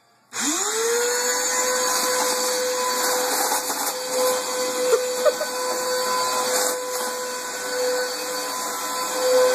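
Upright vacuum cleaner switched on: its motor spins up within a moment to a steady high whine over a rush of air, runs steadily, and stops abruptly at the end.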